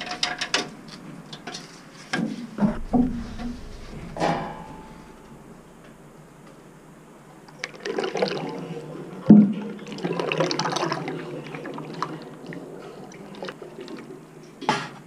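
Used engine oil being poured from a metal drain bucket into a plastic funnel on a waste-oil drum, with a gurgling, splashing run of liquid in the second half. Before it come scattered knocks and clatter as the bucket is handled, and there is one sharp knock in the middle of the pour.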